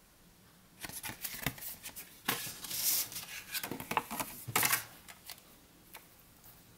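Clear plastic packaging bag and cardboard backing card being handled, crinkling and rustling in a run of bursts from about a second in, loudest near the middle, dying away after about five seconds.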